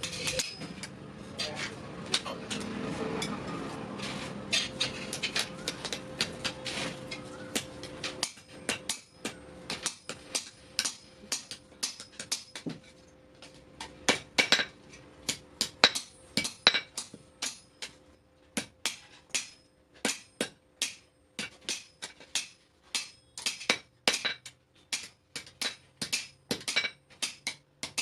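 Blacksmith's hammer striking metal on an anvil in a long, irregular series of ringing blows. A steady noise runs under the strikes for the first few seconds and then drops away.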